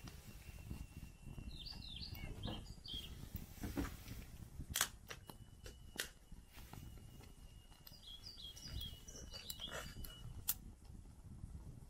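Twigs burning in a small folding metal wood stove, a low flame rush with a few sharp crackling pops, while small songbirds chirp in the background.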